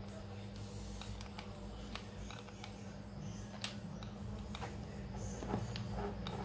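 A few faint clicks and light taps from hand work on the wheel of a Traxxas TRX-4 RC crawler as the wheel nut is tightened, over a steady low hum.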